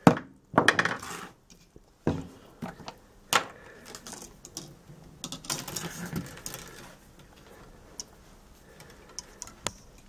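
A temperature probe stirred around in a plastic beaker of microwave-heated water, knocking and clinking against the beaker's sides. The knocks are busiest in the first few seconds and thin out to a few light ticks near the end.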